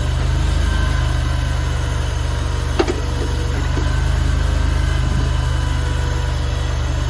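AGT LRT23 mini stand-on skid steer's 739cc engine running steadily, with one sharp clank just under three seconds in.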